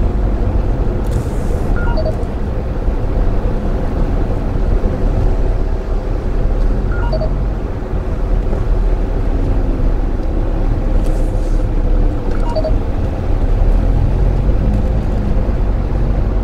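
Steady low rumble of a Daihatsu Move Custom RS kei car heard from inside its cabin in slow traffic: engine and road noise. Faint short tones repeat about every five seconds.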